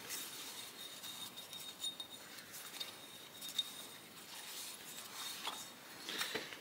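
Faint handling noises: soft rag rustling and a few light clicks and clinks as a metal air start valve body is handled and turned over.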